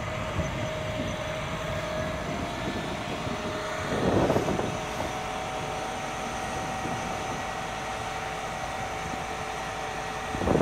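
Truck-mounted boom crane running steadily with a high whine from its hydraulics as it lowers a suspended air-conditioning unit; about four seconds in there is a brief louder surge and the whine steps up slightly in pitch.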